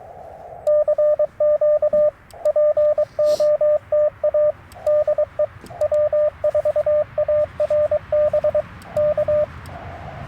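Morse code sidetone from a Yaesu FT-891 transceiver: a steady beeping tone keyed in rapid dots and dashes as a CQ call is sent, starting about a second in and stopping just before the end. Before and after the keying, the receiver's narrow CW-filtered band noise hisses, and it drops out while the tone is sounding.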